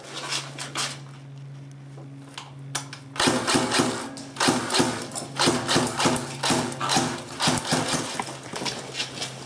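Airsoft electric guns firing in rapid clattering bursts, starting about three seconds in and repeating, over a steady low hum.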